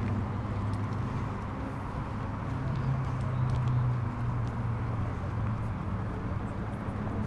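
A low, steady engine drone whose pitch rises slightly about three seconds in, then settles, with a faint murmur of voices.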